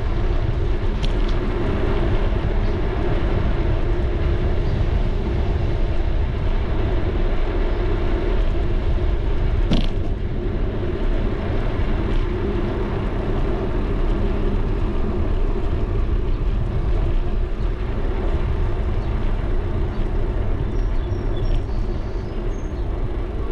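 Bicycle riding along a paved street, heard on a GoPro: steady low rumble of tyre and road noise with wind on the microphone, and one sharp click about ten seconds in.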